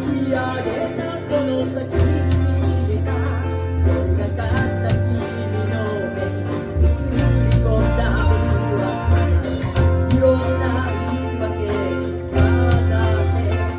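Live band playing a pop ballad: bass, guitar and drums, with a singing voice carrying the melody.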